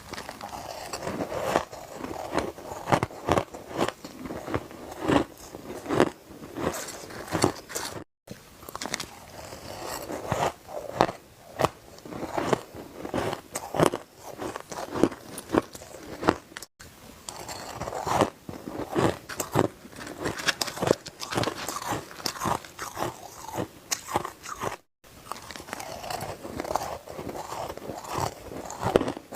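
Close-up crunching of ice being bitten and chewed: a dense, irregular run of crunches, broken three times by a short silent gap.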